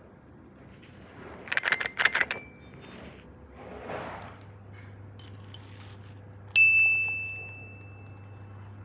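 A quick clatter of small hard clicks, then about two-thirds of the way through a single bright ding that rings on and fades over about two seconds.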